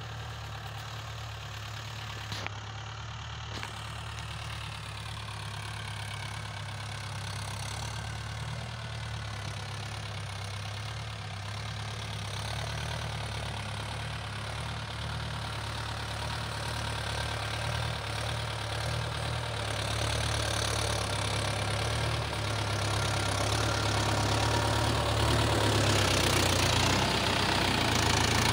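Mahindra Yuvo 575 DI tractor's four-cylinder diesel engine running steadily while pulling a cultivator, growing louder as the tractor comes close.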